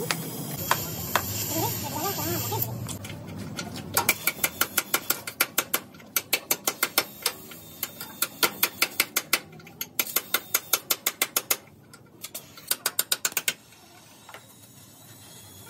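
Bursts of rapid sharp clicks or taps, about five a second, starting a few seconds in and stopping shortly before the end, from hand work on a car in a workshop. A voice is heard briefly at the start.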